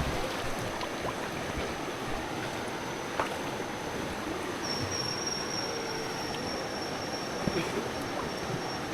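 River water rushing steadily around a raft, an even wash of noise with a few faint knocks.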